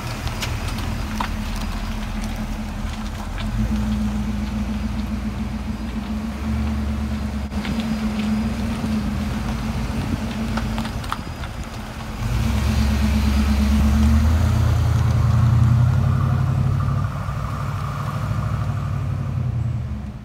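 1979 Pontiac Trans Am 10th Anniversary's V8 idling steadily. About twelve seconds in it gets louder as the car pulls away, then eases off and fades as it drives off.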